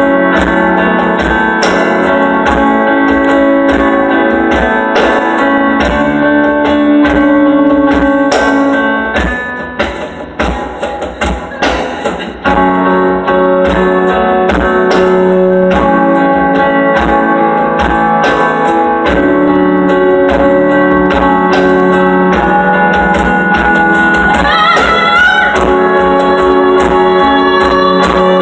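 Live band music without singing: keyboard and guitar over a steady beat, thinning to a few scattered hits for a couple of seconds about ten seconds in, then coming back at full level.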